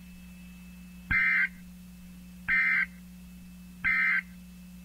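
Emergency Alert System end-of-message code on NOAA Weather Radio: three short, identical buzzing digital data bursts about 1.4 seconds apart, marking the end of the alert message. A steady low hum runs underneath.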